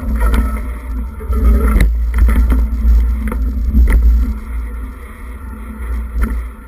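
Heavy wind buffeting on a moving camera's microphone, with scattered knocks and rattles as it travels over a rough forest dirt trail.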